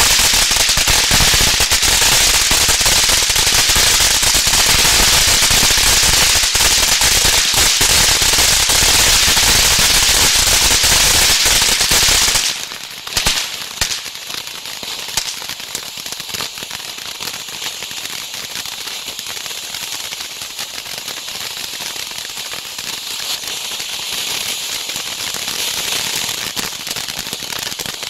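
Heavyweight Fireworks Red Reign ground fountain crackling loudly and densely. About halfway through, the crackle drops off sharply, a few separate pops follow, and the fountain then runs on quieter and steadier, hissing with a lighter crackle.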